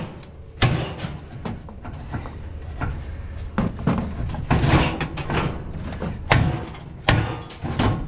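Irregular knocks, thuds and clattering of salvaged items being handled and shifted around, over a low steady rumble.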